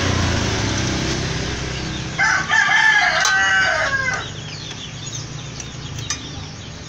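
A rooster crowing once, a single drawn-out call of about two seconds starting about two seconds in, over a steady low rumble.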